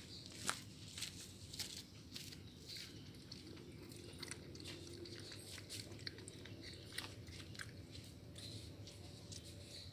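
A puppy lapping water from a cut-open plastic jerrycan: a run of small, irregular wet clicks and splashes, with one sharper click about half a second in.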